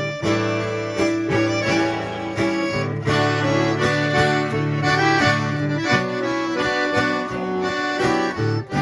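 Instrumental break of a Brazilian sertanejo song: an accordion plays the melody in sustained notes over plucked guitar accompaniment.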